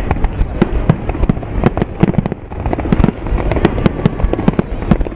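Aerial firework shells bursting in a rapid, irregular barrage of bangs, several a second, with a brief lull a little over two seconds in.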